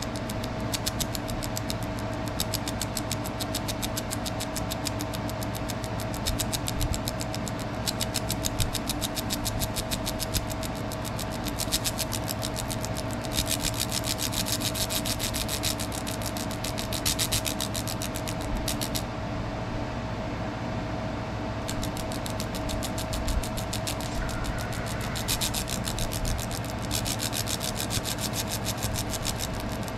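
Laser engraver stippling a rounded metal airsoft part: a steady machine hum and drone under a fast, fine crackling buzz from the laser pulses. The crackle grows stronger in two stretches and stops for a couple of seconds about twenty seconds in.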